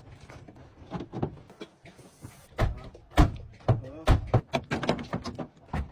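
A rapid, irregular series of sharp knocks and bangs, thickening from about halfway, mixed with a person's voice.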